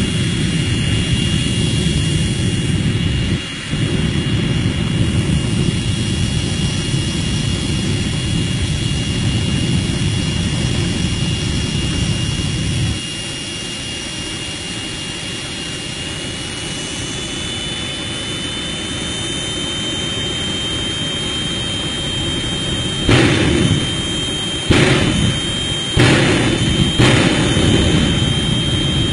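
Jet car's jet engine running on afterburner, a steady high whine over a heavy low rumble. The rumble drops away about halfway through and the whine steps a little higher, then several sharp, loud bangs come near the end.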